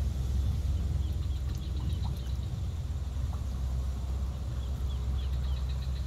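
A steady low rumble with wild birds chirping over it in short, high, repeated notes, some sliding down.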